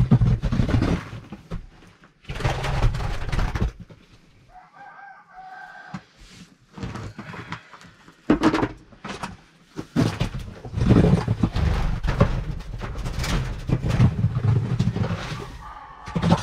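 A rooster crowing among chickens, with one drawn-out pitched call about five seconds in. Repeated loud bursts of low rumbling noise come and go around it.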